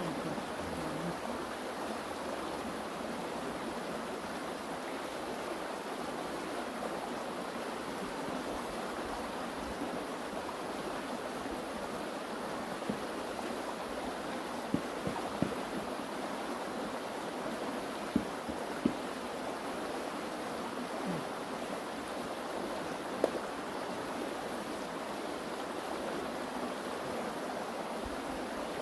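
Steady rushing of running water, with a few sharp clicks scattered through the middle.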